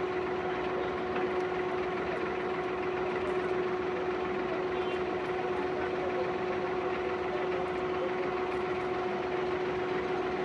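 Abra water taxi's diesel engine idling steadily before the boat sets off: an even hum holding one constant pitch.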